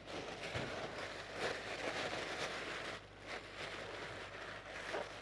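Vegetables sizzling gently in a hot pan as they are lightly sautéed, a steady hiss that drops lower about three seconds in, with a few light knocks and a low steady hum beneath.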